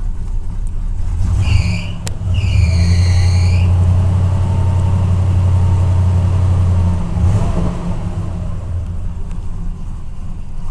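1990 Cadillac's carbureted V8 running roughly just after a cold restart: it is revved up from about two seconds in and held there until about seven seconds, then drops back to a rough idle. A brief high squeal sounds as the revs come up.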